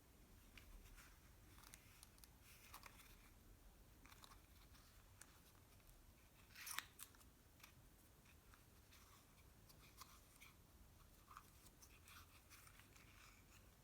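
Faint handling sounds of packaging or a small jar being handled up close: scattered soft clicks and rustles, with one louder rustle about halfway through.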